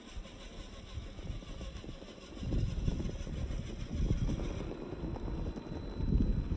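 Wind buffeting the microphone: an irregular low rumble with no steady pitch that grows louder about two and a half seconds in.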